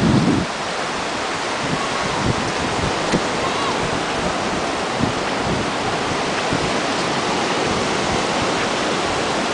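Steady hiss of surf washing onto a sandy beach, with a gust of wind buffeting the microphone right at the start.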